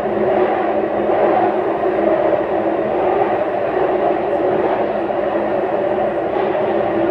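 Cabin noise inside a Taipei Metro car as the train runs: a steady rumble of wheels and running gear with a constant low hum.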